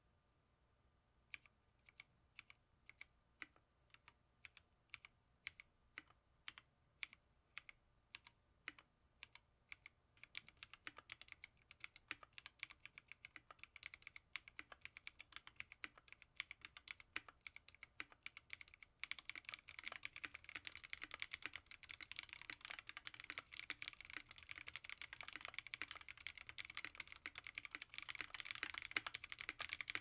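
Aquila custom mechanical keyboard with Keyfirst Bling Green switches and PBT keycaps being typed on. It starts with single key presses about two a second. From about a third of the way in it becomes steady, fast typing, which grows louder and denser a little past the midpoint.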